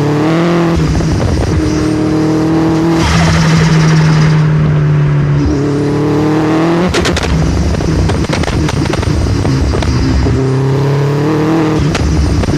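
Vauxhall Astra VXR's 2.0-litre turbocharged four-cylinder engine accelerating hard through the gears, revs climbing and dropping at each of several quick shifts. Bursts of sharp pops and crackles come around two of the shifts, about seven seconds in and near the end.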